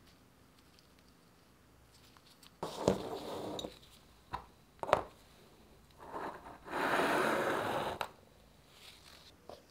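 Painted metal caliper brake parts being handled and set down on a hard surface: a short scrape, two sharp clicks, then a longer scraping clatter of small bolts, washers and springs near the end.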